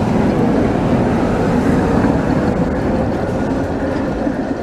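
CKD Tatra T4D/B4D tram set passing close by: steady running noise of its wheels on the rails, getting quieter toward the end.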